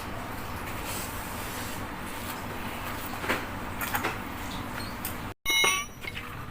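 Steady workshop background noise with a few faint knocks. The sound cuts out for a moment about five seconds in, and then a brief, louder pitched sound follows.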